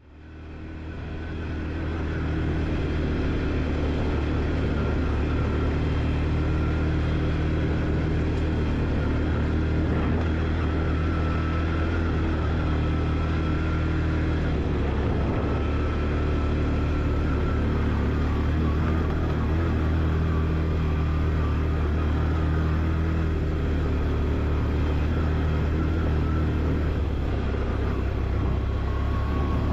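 Quad (ATV) engine running at a steady, moderate pace while riding, with an even drone that does not rise or fall; the sound fades in over the first couple of seconds.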